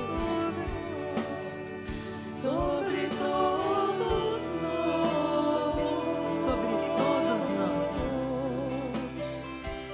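A choir and congregation singing a Christian devotional hymn together.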